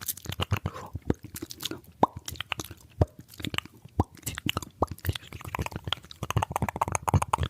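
Fast ASMR mouth sounds close to the microphone: rapid wet clicks, pops and tongue smacks, with a louder pop about once a second and a denser run of clicks near the end.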